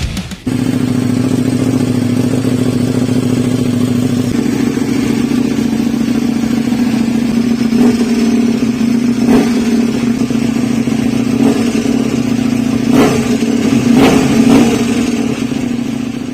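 KTM 1290 Super Duke R's V-twin engine, fitted with a "prorace" exhaust, idling steadily, then given several short throttle blips in the second half.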